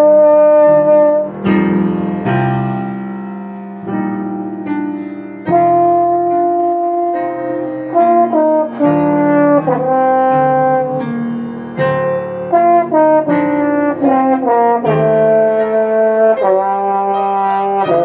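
Instrumental music: a French horn playing a melody of held notes over piano, with a run of quicker, shorter notes in the middle.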